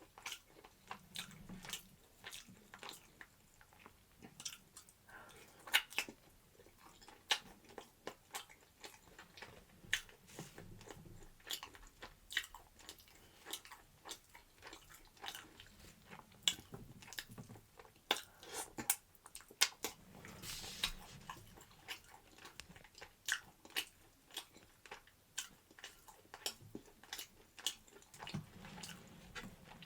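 A person eating close to the microphone: irregular biting and chewing with many small, sharp wet mouth clicks.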